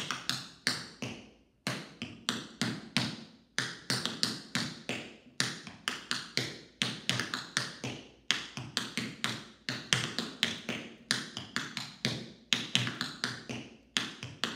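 Tap shoes striking a wooden floor: a tap dancer's triple time steps with buffalo steps, the taps clicking in quick rhythmic clusters with short pauses between phrases.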